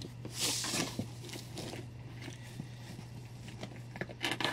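Comic books and a cardboard shipping box being handled: a rustle of paper and cardboard about half a second in, then light scuffs and taps, over a steady low hum.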